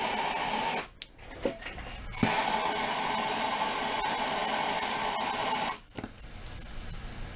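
Hand torch flame hissing steadily as it heats a copper pipe fitting for soldering. The hiss drops away about a second in, comes back a second later, and falls away again near six seconds.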